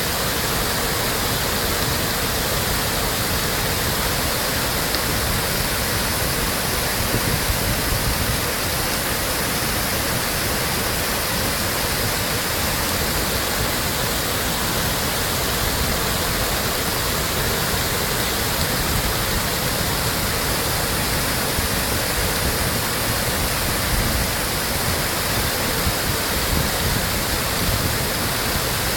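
Water of an artificial waterfall pouring down and splashing, a steady, even rush without letup.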